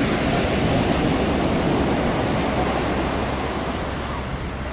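Waves breaking in the shallows and washing up the sand: a loud, steady rush that eases slowly toward the end.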